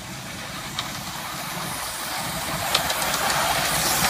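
Miniature steam locomotive running toward the listener and drawing level, its sound growing steadily louder, with a few sharp clicks along the way.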